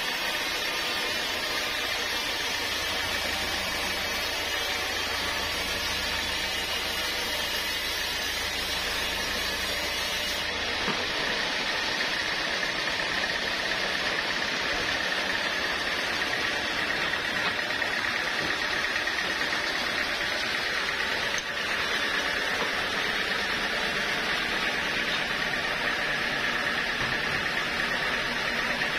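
Sawmill machinery running steadily: a constant noisy hum with a steady high whine over it. The deep hum drops out about ten seconds in.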